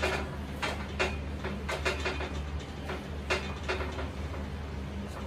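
A brush spreading oil over a cast iron tawa: light, irregular scrapes and taps against the pan, over a steady low hum.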